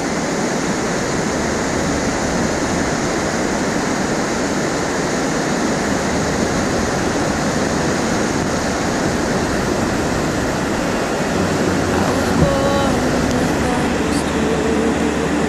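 Whitewater rapid in full flow: a steady, loud rush of water pouring over rocks. About twelve seconds in, a few faint pitched sounds come in under the roar.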